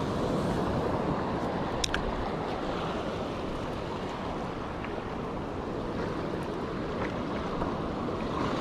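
Steady wash of rough sea surf breaking and swirling among the rocks of a rocky shore, with wind buffeting the microphone. A single sharp click about two seconds in.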